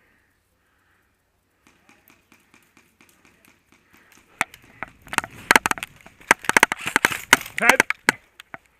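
Light footsteps about three a second, then from about four seconds in a flurry of loud, irregular sharp cracks and clicks that stops near the end.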